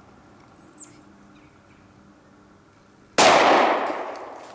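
A single 10mm pistol shot from a Glock 20 firing a heavy 230-grain hard-cast bullet, about three seconds in. Its report echoes and dies away over a second or so.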